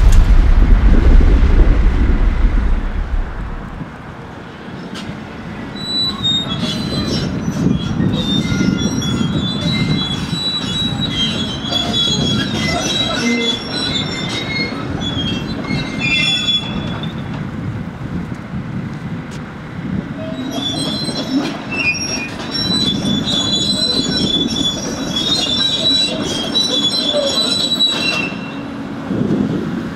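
Deep rumble of a collapsed building wall dying away over the first few seconds, then a hydraulic excavator working in the demolition rubble: a steady low noise with repeated high metallic squeals and clicks.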